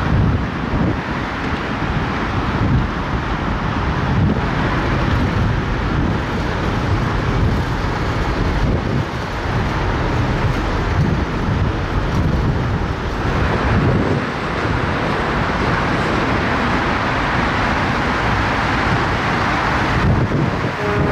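Steady noise of road traffic on the bridge deck beside the footway, with wind buffeting the camera's built-in microphone.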